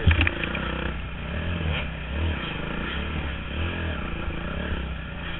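Dirt bike engine running and revving up and down while riding a rough trail, heard from a camera mounted on the bike. A few sharp clattering knocks come just after the start.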